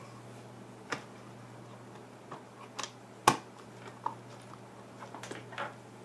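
A few scattered light clicks and knocks as the bottom cover of an Intel NUC mini PC is handled and set onto its chassis; the sharpest click comes a little past the middle.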